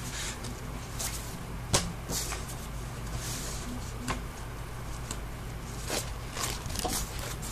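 Sheets of drawing paper rustling and shuffling as they are handled and lifted, with a few sharp taps and clicks, over a steady low hum.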